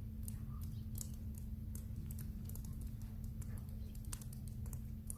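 Irregular sharp ticks and crackles from thawing river ice and meltwater, over a steady low rumble.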